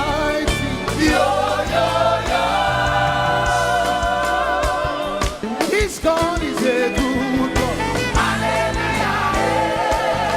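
Live gospel praise music: a band with a steady beat and bass under singers and a choir, the voices wavering on held notes.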